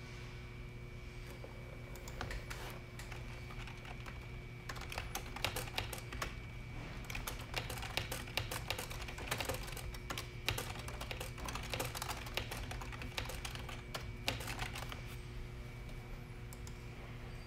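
Quick, irregular clicks of typing on a computer keyboard, starting about two seconds in and densest in the middle, over a steady electrical hum.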